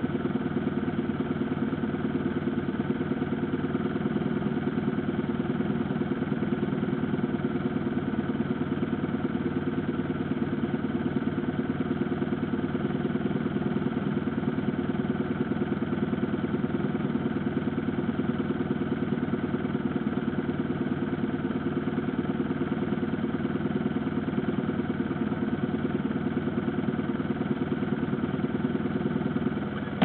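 Motorcycle engine idling steadily, a continuous even beat of firing pulses with no revving.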